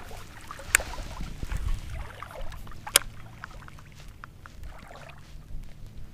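Baitcasting reel being handled and cranked: two sharp clicks, one just under a second in and one about three seconds in, among faint ticking, over a low rumble.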